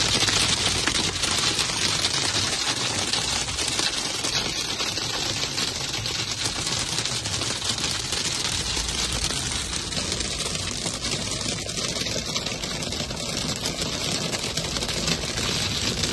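Hailstones hitting a car's roof and windshield, a dense, steady clatter of rapid hits heard from inside the car.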